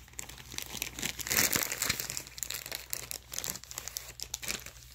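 Small crinkly plastic blind-bag packet being worked open by hand: a dense, irregular crackling of the wrapper that gets louder about a second in.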